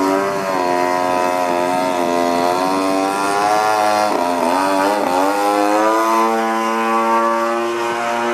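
Gasoline engine and propeller of a Hangar 9 Cap 232 80-inch RC aerobatic plane running in flight. The engine note rises and falls through the manoeuvres, dips sharply about four seconds in, climbs back, then holds steady near the end.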